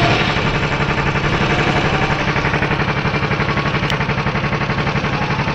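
Go-kart engine running at a steady speed, a rapid, even putter of firing pulses.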